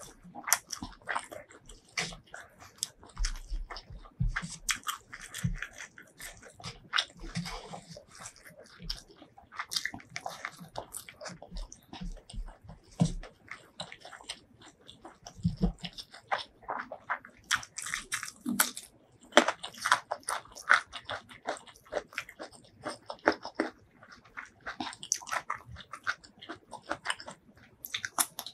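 Close-miked eating sounds: wet chewing and lip smacking of spicy duck curry and rice eaten by hand, with squelching as fingers mix the rice into the curry. Irregular crisp crunches of biting and chewing run throughout, with raw cucumber at the mouth near the end.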